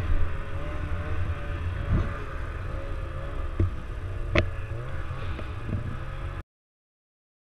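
Snowmobile engine running at a steady, slightly wavering pitch, with a few sharp knocks over it. The sound cuts out abruptly to silence near the end.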